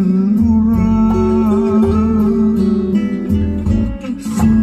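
A Thai song played through a Morel component car audio system, led by guitar, with a sustained wavering melody line over steady bass. Near the end it dips briefly and comes back with a sharp strum.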